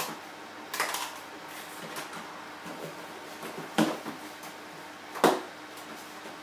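A cardboard camera box being handled and opened by hand: soft scuffs of cardboard with a few sharp taps and knocks, the loudest near four and five seconds in.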